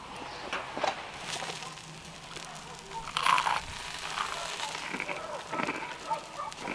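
Knife cutting and scraping grilled meat on a wooden board, small clicks and scrapes at an uneven pace, over the faint crackle of embers. A brief louder sound breaks in about halfway through.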